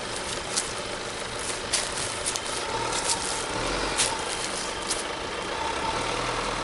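Jeep Renegade Trailhawk's 2.0-litre diesel engine running at low revs as the SUV crawls slowly through an off-road trench, with scattered sharp crackles.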